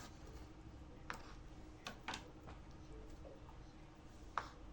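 A few faint, sparse knocks of a knife cutting vegetables on a chopping board, over low room tone.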